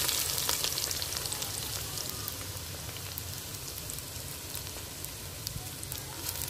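Sliced onions sizzling in hot oil in an earthenware kadai, a dense sizzle with many fine crackles. It is loudest at first and eases off slowly as the onions settle in the oil.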